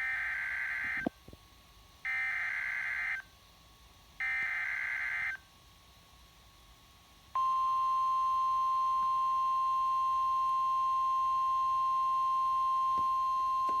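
Emergency Alert System broadcast on NOAA Weather Radio: three short, screechy digital SAME header bursts about a second apart, then, about seven seconds in, the single steady 1050 Hz weather radio warning alarm tone, the signal that a warning is about to be read.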